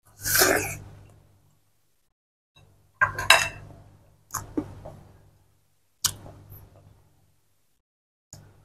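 Close-miked eating of watermelon: a wet, crunching bite near the start, then several sharp clicks and smacks of chewing a few seconds in.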